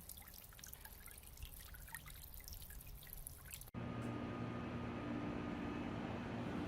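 Small solar fountain pump's spray pattering and dripping into a bird bath, many fine droplet splashes. About three and a half seconds in the sound cuts off abruptly and gives way to a steady hum with a few low held tones.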